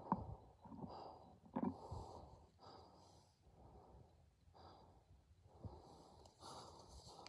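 Hunter's heavy breathing close to the microphone, a puff of breath about once a second.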